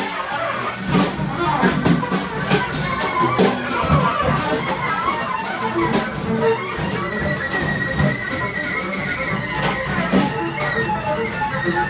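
Live free-jazz trio playing: a drum kit with scattered hits and cymbal crashes, a double bass, and a saxophone that holds a long high note from about halfway through.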